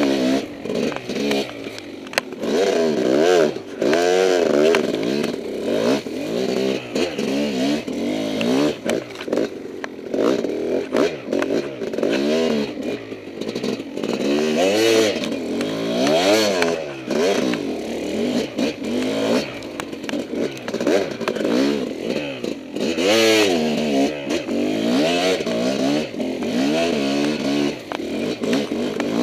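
Kawasaki KX250 two-stroke dirt bike engine revving up and down over and over as the rider blips and rolls the throttle through tight turns, the pitch rising and falling every second or two. Some clattering and scraping from the bike runs along with it.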